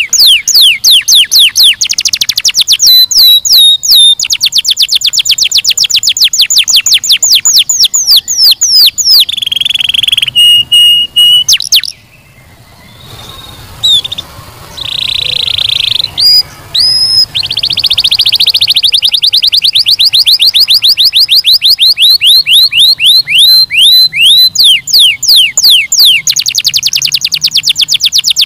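Domestic canary singing: long rolling trills of rapid, evenly repeated whistled notes, broken a little before halfway by a pause of about two seconds, then a short buzzy note and more fast trills.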